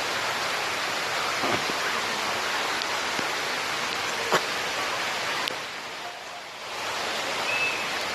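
Steady rush of falling water from a waterfall, dipping briefly about six seconds in, with a couple of sharp taps.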